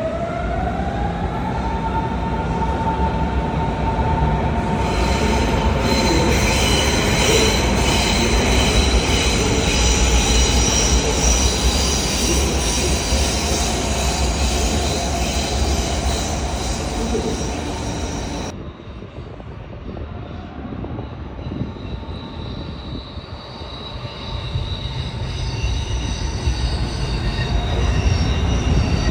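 Berlin S-Bahn train running: an electric motor whine rises in pitch and levels off, then high-pitched wheel squeal joins about five seconds in. Just past halfway the sound cuts suddenly to quieter running, which builds again with squealing tones near the end.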